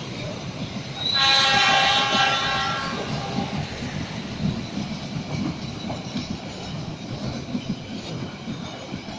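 Passenger train coaches rolling past with a steady rumble and clatter of wheels on the rails. About a second in, a train horn sounds for about two seconds, the loudest sound here, and fades out.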